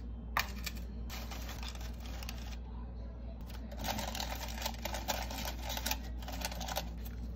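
Parchment paper crinkling and rustling as hands fold and smooth it around the rim of a cake pan, in two spells with a sharp crackle about half a second in. A low steady hum runs underneath.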